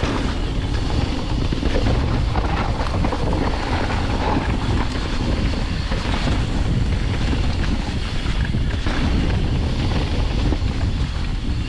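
Wind buffeting a GoPro microphone and a Santa Cruz Nomad mountain bike's tyres rolling over loose, slick dirt during a fast trail descent, with scattered small knocks from the bike.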